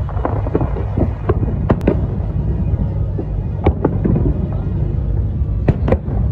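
Fireworks bursting overhead: a continuous low rumble of booms, broken by sharp cracks that come singly and in close pairs every second or two.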